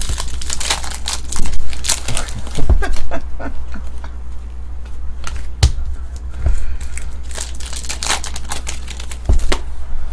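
Trading card pack wrapper torn open and crinkled by hand, with the cards handled, in a run of irregular crackles and a few sharp snaps over a steady low hum.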